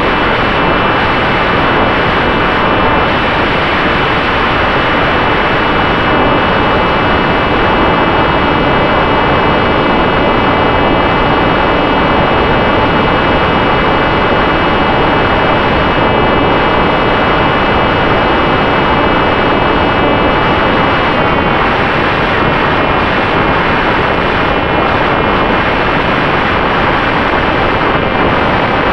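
Electric motor and propeller of an FX-61 flying-wing RC plane running steadily in flight, a high whine that shifts slightly in pitch about 21 seconds in, under a heavy rush of wind noise.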